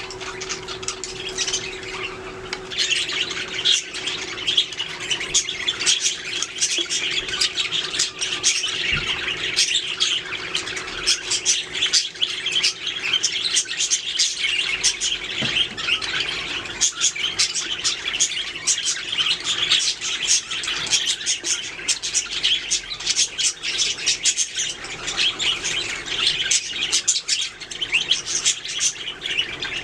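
A flock of budgerigars chattering continuously in rapid, overlapping chirps and squawks, busier from about two seconds in. A faint steady hum underneath fades out about halfway through.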